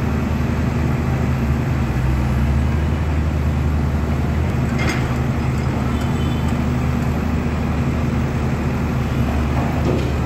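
Tata Hitachi hydraulic excavator's diesel engine running steadily at working speed, a low even engine hum. A brief click sounds about five seconds in.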